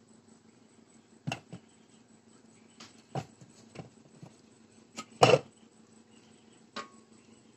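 A handful of short, sharp knocks and clicks from handling, the loudest and longest about five seconds in, over a faint steady hum.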